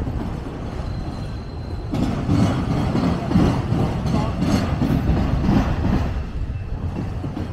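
Freight train of autorack cars rolling past slowly: a steady rumble of steel wheels on the rails, rougher and more uneven from about two seconds in.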